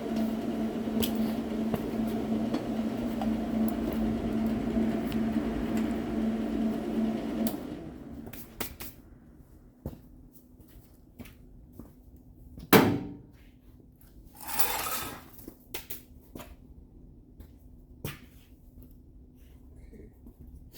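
A steady electrical or mechanical hum with a low buzzing tone, which stops about seven seconds in. Then come scattered light clicks, one sharp knock about halfway, and a short hiss a couple of seconds later.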